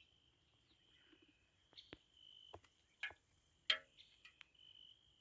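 A series of irregular sharp clicks and taps, the loudest about three-quarters of the way through, over a faint high-pitched tone that comes and goes.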